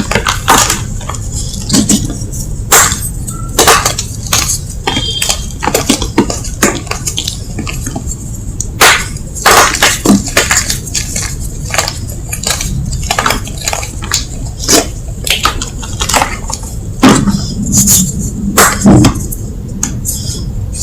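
Lumps of gym chalk being crunched and crushed: a long run of irregular, sharp crunches and crumbling crackles, with the loudest cluster about three-quarters of the way through.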